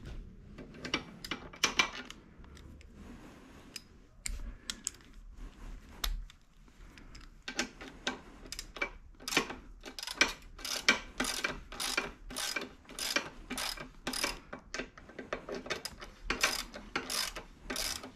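Hand socket ratchet clicking as it is worked back and forth on the seat-mount bolt of an electric dirt bike. After some scattered clicks and knocks in the first half, it settles into steady strokes, about two a second.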